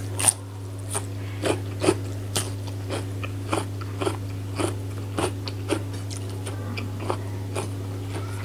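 A person chewing food close to the microphone, with crisp, crackly crunches about twice a second. A steady low electrical hum runs underneath.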